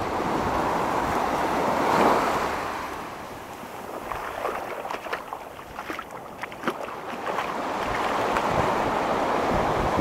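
Small ocean waves breaking and washing up a sand beach, with wind buffeting the microphone. A surge swells about two seconds in, then eases to a quieter wash with a scatter of short crackles before the next wave builds near the end.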